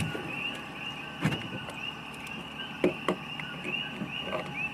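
Chorus of coquí frogs calling at night, short rising chirps repeating several times a second, with a few sharp pops about a second in and twice near three seconds.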